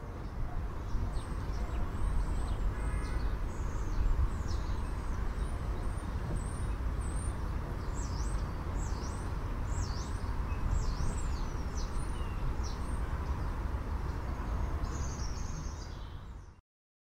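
Park ambience: birds chirping in quick rising and falling whistled calls over a steady low rumble. It cuts off abruptly near the end.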